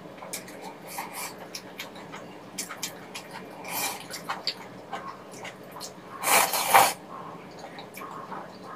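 Close-miked eating of soupy rabokki noodles: wet chewing and mouth smacks with small clicks, and a loud slurp of the noodles about six seconds in.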